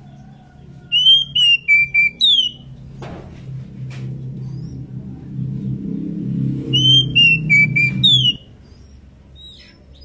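Female oriental magpie-robin in breeding condition singing two short whistled phrases about five seconds apart, each a few clear falling notes ending in a higher slurred note. A low hum runs underneath and stops suddenly about eight seconds in.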